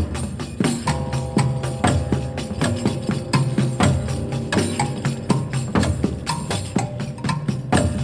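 Instrumental music from a 1961 pianos-and-percussion record: a brisk, steady stream of percussion hits over held keyboard chords and a bass line.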